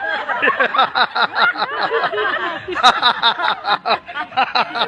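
A man making a rapid string of warbling, chirping vocal sounds with his mouth, several quick rising-and-falling calls a second, with a sharp click about three seconds in.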